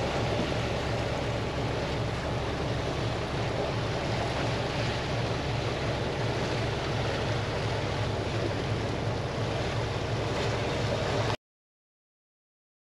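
Boat motor running steadily under way, a low hum under the rush of wake water and wind. The sound cuts off abruptly to silence near the end.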